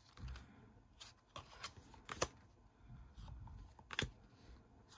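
Cardstock rune cards slid off a hand-held stack one by one and laid down on a pile: faint papery slides with several short sharp snaps, the sharpest about two seconds in and another near four seconds.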